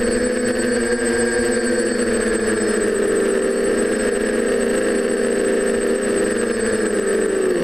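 TBS Discovery quadcopter in flight: its four DJI 920Kv brushless motors and 9x5 propellers give a steady buzzing whine whose pitch wavers slightly as the throttle shifts, dipping briefly near the end. A thin steady high whistle runs above it.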